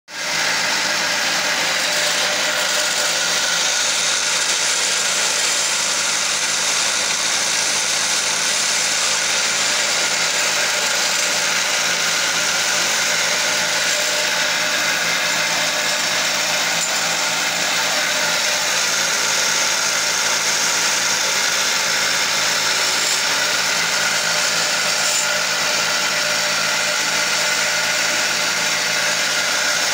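Motor-driven wood lathe running steadily while a hand-held chisel cuts a spinning wooden spindle: a continuous hiss of the tool shaving wood over the lathe's running hum.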